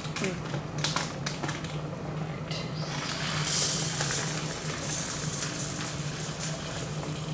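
Dry rice poured from its bag, a run of small grains hissing and rattling for about four seconds, after a few clicks of the bag being handled. A steady low hum runs underneath.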